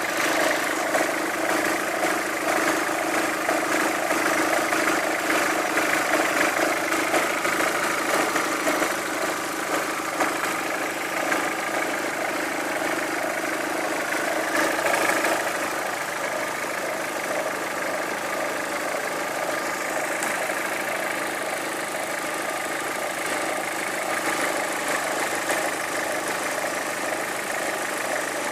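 An engine idling steadily, with an unwanted extraneous noise in its running.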